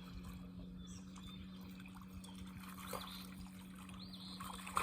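Faint water trickling and splashing, with a steady low hum underneath and a few short high chirps.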